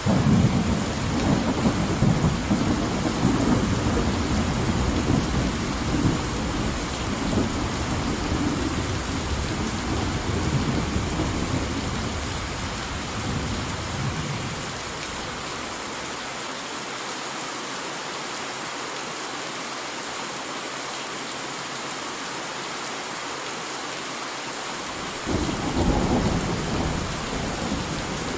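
Steady heavy rain with rolling thunder: a long rumble breaks in suddenly and fades away over about fifteen seconds, then a second, shorter clap of thunder comes near the end.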